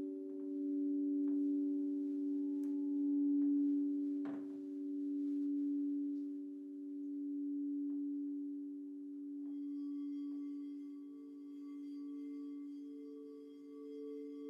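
Crystal singing bowls, tuned in fifths and fourths, ringing in long sustained tones while they are tapped lightly with a soft ball-headed mallet. There is a sharper strike about four seconds in. Another bowl comes in about ten seconds in, its higher tone swelling and wavering over the others.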